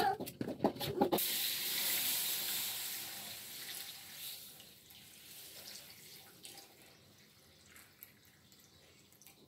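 Water poured from a bowl into a wok of spice paste, splashing loudest about a second in and fading gradually as the stream thins. A few knocks come just before it.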